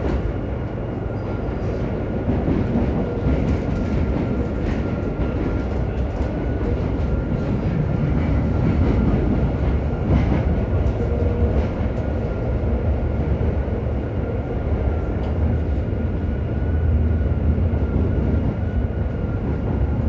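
Interior running sound of a JR Hokkaido 731-series electric multiple unit: a steady low rumble of the car on the rails with a thin, constant high whine above it.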